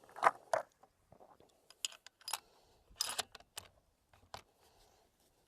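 Sako Finnlight bolt-action rifle being handled: a run of irregular, sharp metallic clicks and clacks.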